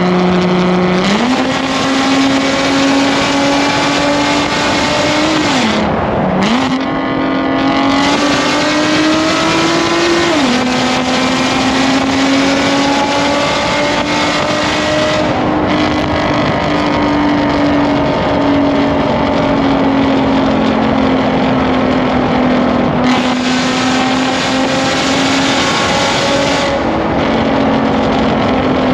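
Nissan 370Z's 3.7-litre V6 exhaust running hard at high revs, echoing in a tunnel. The pitch steps up about a second in, dips sharply and climbs back around six seconds, rises until about ten seconds and then steps down at a gear change, and holds nearly steady for the rest.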